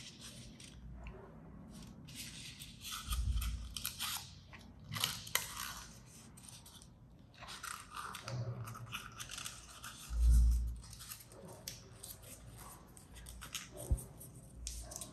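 A paper dollar bill rustling and crinkling in bursts as it is folded and creased by hand. A dull low thump about two-thirds through is the loudest sound, with a sharp click near the end.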